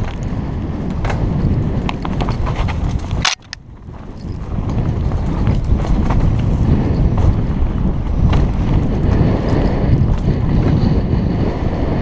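Kona Operator downhill mountain bike descending a dirt trail: wind rushing over the bar-mounted microphone, with tyre rumble and sharp rattling clicks from the bike. A little over three seconds in there is a sharp click and the noise drops suddenly for a moment, then builds back up and stays louder.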